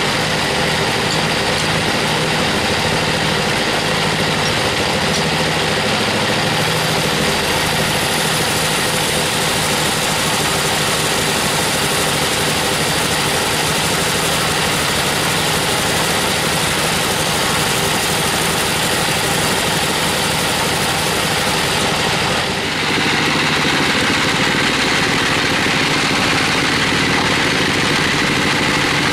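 Band sawmill running, its blade cutting lengthwise through a wangkal (Albizia procera) log: a steady machine drone with several steady pitches, dipping briefly and shifting slightly near the end.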